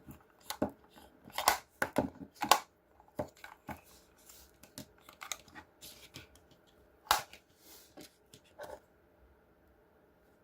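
A product box or item being opened and handled by hand: irregular clicks, taps and short rustles, the sharpest about 1.5, 2.5 and 7 seconds in, then it goes still near the end.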